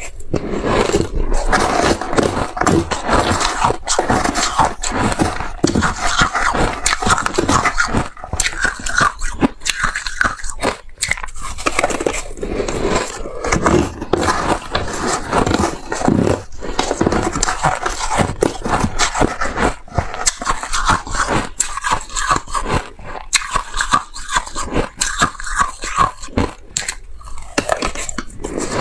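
Close-miked crunching and chewing of moist granular 'buckwheat' ice eaten by the spoonful: a dense, irregular crackle of ice grains breaking between the teeth, with the spoon scooping and scraping in the bowl between bites.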